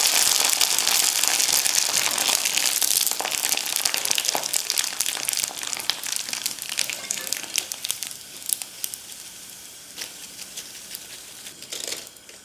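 Sun-dried sago (sabudana) sandige deep-frying in hot oil: a loud sizzle full of sharp crackles and pops that fades steadily and is much quieter over the last few seconds.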